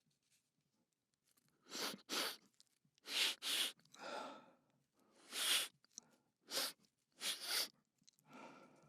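A person sniffing hard through the nose about ten times, short sharp sniffs, some in quick pairs, to draw something up and bring on a sneeze.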